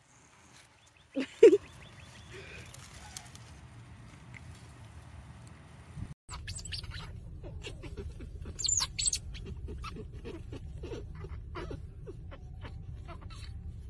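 A beaver eating a hibiscus flower, with two short loud sounds about a second in. After a cut, otter pups squeak and chirp while suckling, over a steady low hum, with a burst of shrill squeals near the middle.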